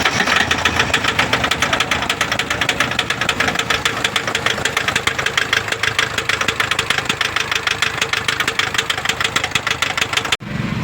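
Toyota Fortuner diesel engine running with a rapid, even knocking, several sharp knocks a second. This is the engine knock the vehicle was brought in for. The sound cuts off suddenly near the end.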